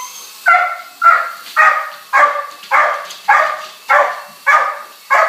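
Dog barking over and over in a steady run of about two barks a second.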